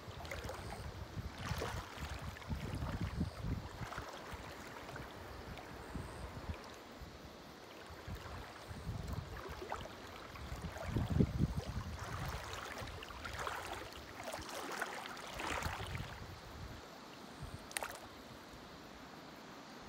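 Shallow stream running over stones, with uneven low rumbles throughout and a few short splashes in the second half.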